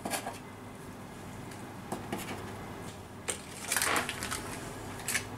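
Knife and fork clicking and scraping against a metal baking tray as a piece of cinnamon roll is cut out and lifted. There are a few short clicks and a longer scrape about four seconds in.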